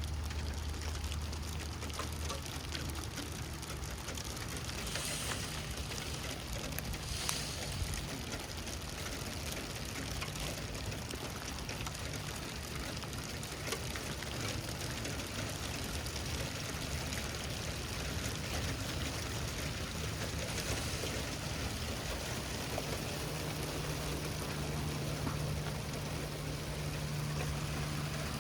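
Steady light rain falling, with a low steady hum underneath that shifts pitch about three-quarters of the way through, and a couple of brief crackles a few seconds in.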